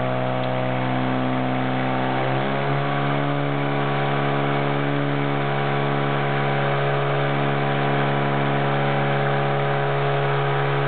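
Fire pump engine running steadily under load, supplying water to the hose lines feeding two spray jets. Its pitch steps up once about two and a half seconds in, then holds even.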